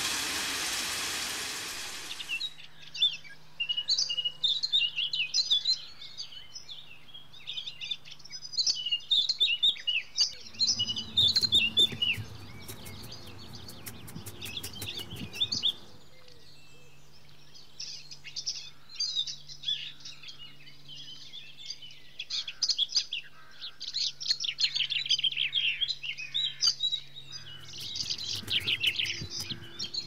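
Birds chirping and calling in quick, repeated short notes throughout, after a steady hiss that cuts off about two seconds in.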